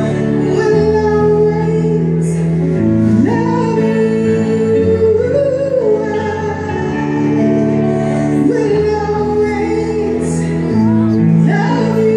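A woman singing a slow ballad live into a microphone over keyboard accompaniment. She holds long notes with slides between pitches.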